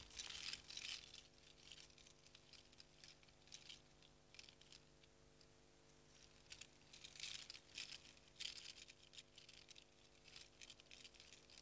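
Faint metallic jingling and clinking of a costume's metal ornaments as a person walks, coming and going in short spells, over a faint steady hum.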